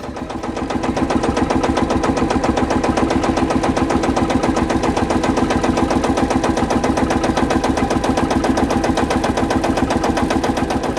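Tractor diesel engine running steadily at close range, getting louder over the first second and easing slightly near the end.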